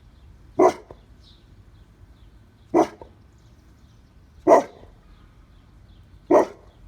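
Pit bull barking four times, single barks about two seconds apart, at something it has noticed.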